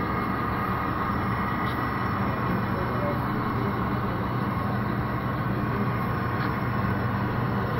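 Model diesel locomotives, an ES44AC leading an SD60 and two SD70ACe units, running slowly at yard speed with a steady hum.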